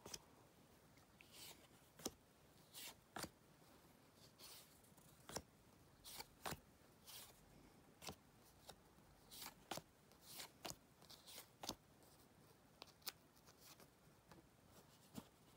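Faint, irregular rustles and clicks of baseball cards being handled and shuffled while sorted into a binder.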